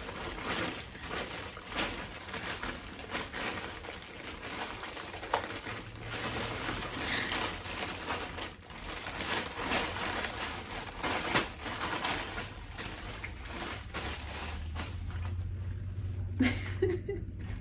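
Gift packaging crinkling and rustling with irregular crackles as a present is unwrapped and handled.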